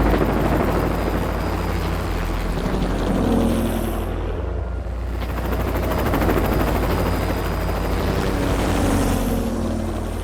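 Movie-style action sound effects: a deep, steady rumble with helicopter-like noise, swelling twice.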